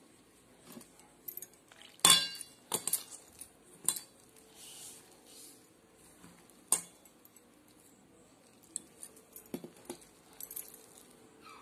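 Glass bangles clinking on the wrist and against a steel mixing bowl as a hand kneads atta dough. Scattered sharp clinks with quiet between them; the loudest comes about two seconds in and rings briefly.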